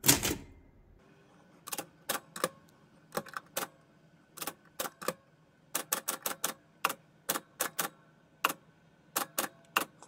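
1973 Olympia SM9 manual portable typewriter being typed on: a thump at the start, then about two dozen sharp keystrokes in short irregular runs with brief pauses, the typebars striking an autumn leaf held on the platen.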